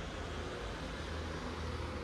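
Street traffic noise: the low steady hum of a vehicle engine over a constant wash of noise.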